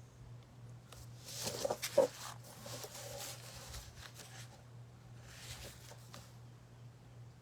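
Paintbrush scratching and dabbing acrylic paint onto an artboard in two short stretches, with a sharper tap about two seconds in. A steady low electrical hum sits underneath.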